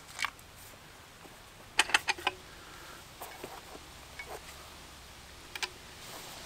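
Clicks and knocks of a rifle being handled and laid into a hard rifle case. There is a quick cluster of four or five sharp clicks about two seconds in, then scattered lighter clicks and a close pair near the end.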